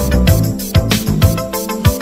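Background music: a funk-style track with a bass line and a steady drum beat.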